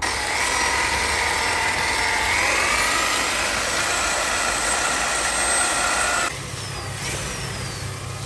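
Electric paddle mixer whirring steadily as it stirs mortar in a bucket, its motor note rising slightly about two seconds in. About six seconds in it cuts to a quieter, lower hum.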